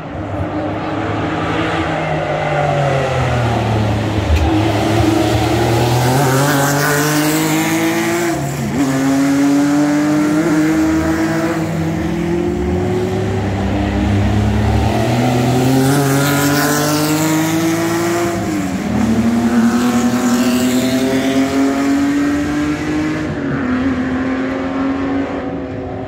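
Vintage racing sports cars' large engines (over 2.0 litres) running hard past at race speed. The engine notes climb in pitch under acceleration and drop sharply three times, as at upshifts.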